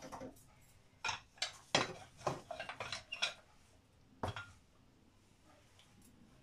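A quick run of sharp clinks and knocks of kitchen utensils against a plate and a wooden countertop, lasting about two seconds, with one more knock about a second later.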